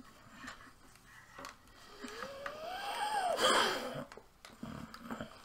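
A drawn-out wordless vocal sound, like a groan or hum, rises and then falls in pitch from about two seconds in and ends in a breathy puff. Light knocks and clicks of a drawing tablet being handled sound before and after it.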